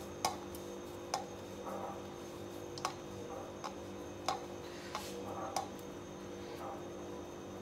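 Hands squeezing crumbly atta-laddoo mixture (roasted wheat flour, ghee and sugar) into balls over a steel plate, with irregular sharp light clicks of fingers against the steel and a soft crumbly rustle. A steady low hum runs beneath.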